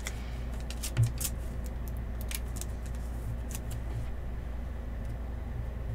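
A trading card being handled, making a few light clicks and one soft knock about a second in, over a steady low hum.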